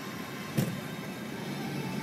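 Low, steady rumble of slow city traffic heard from inside a car, with one sharp knock about half a second in.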